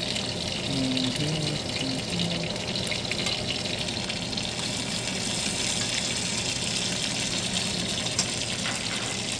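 Dry-aged steak searing in a hot pan of oil with garlic and herbs: a steady sizzle full of fine crackles.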